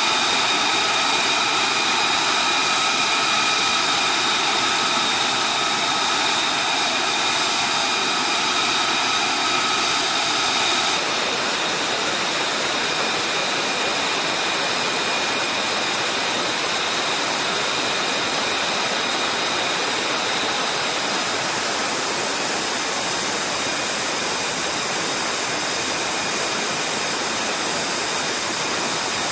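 F-35A Lightning II's F135 turbofan running at idle during hot-pit refuelling: a steady jet noise with high, even whining tones. The whine fades about eleven seconds in, and the steady jet noise carries on.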